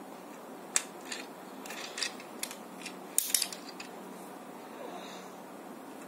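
Plastic Tobot transforming toy being folded into car mode by hand: a string of small plastic clicks and snaps as its parts are pressed and locked into place, thickest a little after three seconds in.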